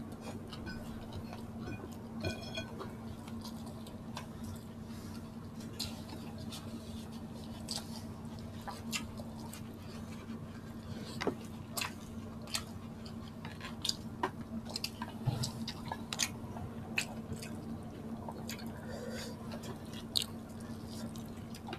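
Close-up mouth sounds of people eating sisig and rice with their hands: chewing, with many short smacks and clicks scattered irregularly. A steady low hum runs underneath.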